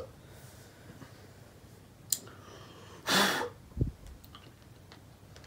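A quiet room pause broken by a person's short, sharp breath about three seconds in, with a small click just before it and a brief low thump just after.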